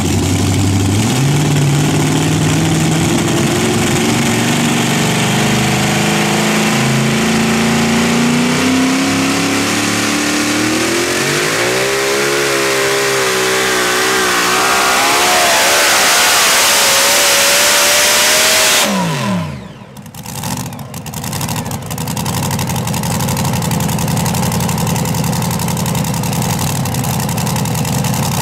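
A pulling vehicle's engine at full throttle under load down the track, its pitch climbing steadily and wavering near the end. About 19 seconds in it is cut off abruptly and the revs fall away. A quieter steady sound with a low hum follows.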